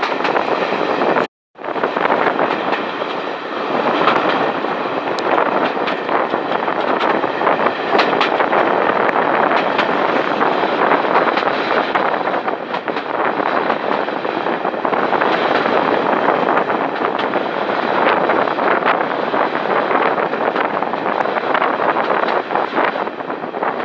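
Passenger train running along the track, heard from an open carriage window: a steady rumble of wheels on rail with scattered clicks. The sound drops out briefly just over a second in.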